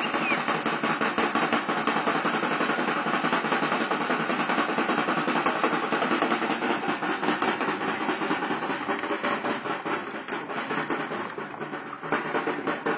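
Fast, continuous drumming in a snare-drum roll, starting abruptly, dipping briefly near the end and picking up again.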